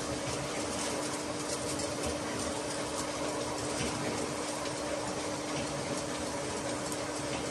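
Bottling-line machinery running steadily: an even mechanical noise with a constant hum and a few faint light clicks.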